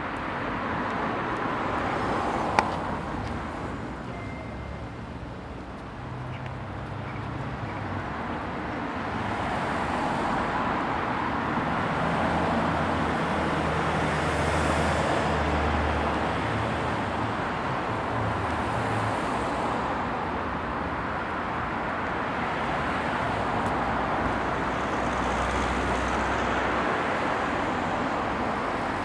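Traffic on a moderately busy street: cars passing one after another, their engine and tyre noise swelling and fading over a steady background hum. A single sharp knock sounds about two and a half seconds in.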